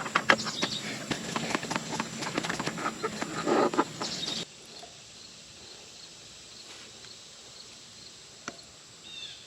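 A new oil filter being spun by hand onto a Kawasaki FS541V engine, a rapid run of scraping and clicking that cuts off abruptly after about four and a half seconds. After that only faint outdoor background remains, with a few faint chirps near the end.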